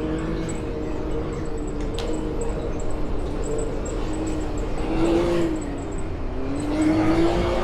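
Off-road vehicle engine running steadily while crawling a rocky trail, its pitch dipping and then rising again twice in the second half as the throttle changes.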